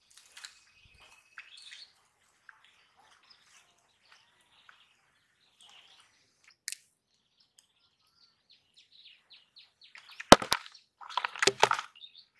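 Faint birds chirping, with a quick run of short chirps near the end. Then two sharp clicks and a short splashy burst as the caught tilapia is dropped into a plastic bucket of water.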